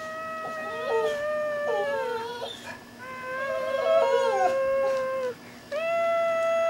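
A dog howling: three long, steady howls, the last starting near the end, each sliding down in pitch as it fades out.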